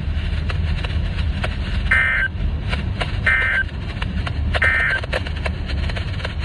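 Three short bursts of Emergency Alert System end-of-message data tones, about a second and a half apart, marking the end of a weather warning broadcast. They play over heavy radio static with crackles.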